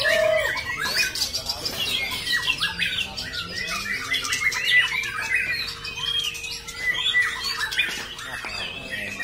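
A young white-rumped shama singing a continuous, varied song of rapid trills and short whistles without a break.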